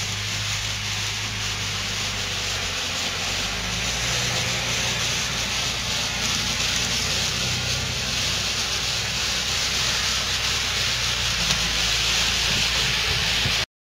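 HO scale model trains running on the layout: a steady rolling rasp of wheels on track with a low motor hum beneath, growing slightly louder. It cuts off suddenly near the end.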